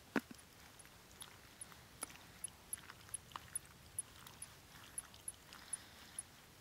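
A spoon clinks sharply against a metal camping pot about a quarter second in, followed by small scrapes and clicks of the spoon in the pot. Behind them, faint short high-pitched chirps repeat two or three times a second.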